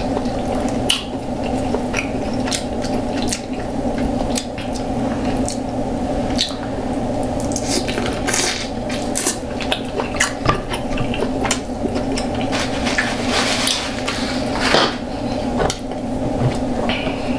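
Close-miked eating sounds of saucy seafood in a coconut curry: wet chewing, smacking and squelching, with scattered clicks and taps, over a steady low hum.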